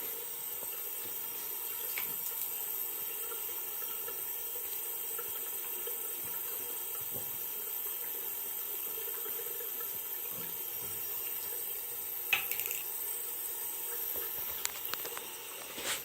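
Water running steadily from a tap into a sink, with a couple of short knocks about twelve seconds in and near the end.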